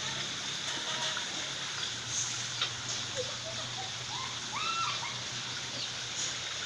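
Steady outdoor background hiss with a low hum beneath it, and a few short bird calls rising and falling about four to five seconds in.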